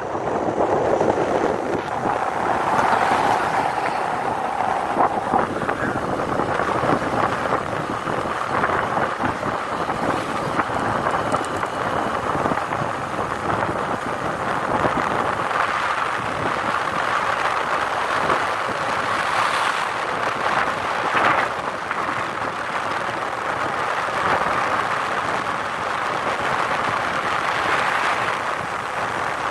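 Wind buffeting the phone's microphone on a moving motorbike, a steady rushing noise over the running noise of the ride, with a few stronger gusts.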